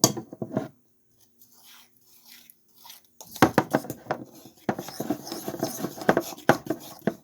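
Slime being mixed and worked by hand: a short burst of sticky clicks at first, then a dense run of quick, irregular wet clicks and crackles from about three seconds in.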